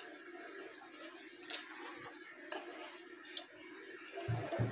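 Chopped vegetables frying in oil in a wok, a faint steady sizzle with a few light ticks. A couple of soft low thumps come near the end.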